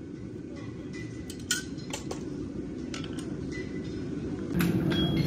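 Farrier's steel tools and horseshoes clinking: a few scattered sharp metal taps and clinks, the loudest about a second and a half in, over a steady low rumble that grows louder near the end.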